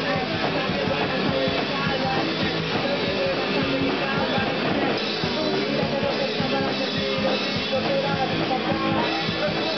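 Live punk rock band playing loud and without a break, with electric guitar and a drum kit.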